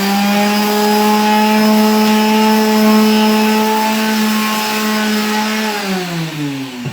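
Electric sander running steadily while sanding gesso-primed canvas. It is switched off near the end and winds down, its hum falling in pitch.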